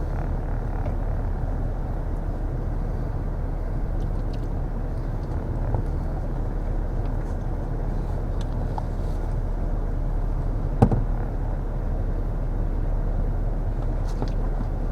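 A car driving, with steady engine and road rumble. A single sharp knock comes about eleven seconds in.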